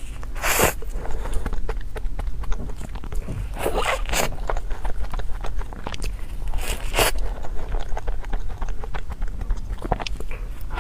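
Eating sounds of a cream puff being bitten and chewed, with soft mouth clicks and a few sharper noisy bursts about half a second, four and seven seconds in.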